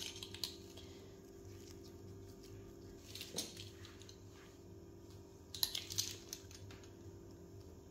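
Faint knife knocks and scrapes on a board as soft yeast dough is sliced into strips: a few light taps about half a second in, around three and a half seconds, and a small cluster near six seconds, over a steady low hum.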